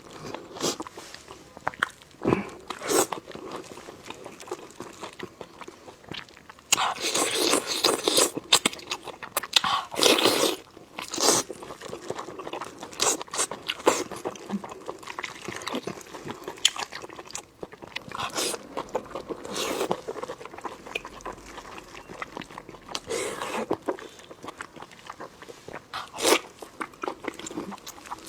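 Close-miked biting and chewing of sheep guts (lamb intestine rolls), wet and crunchy mouth noises coming in irregular bites, with a louder, busier stretch about a quarter of the way in.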